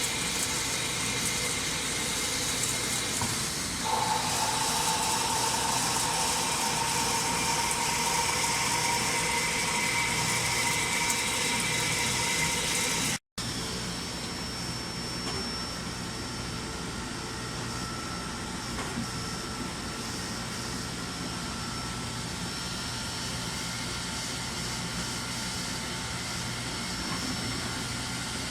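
Nakamura-Tome Super NTM3 CNC turning center machining a part, taking a heavy internal cut: steady machine running with several whining tones, and a new whine joining about four seconds in. The sound cuts out briefly about halfway, then goes on a little quieter with different tones.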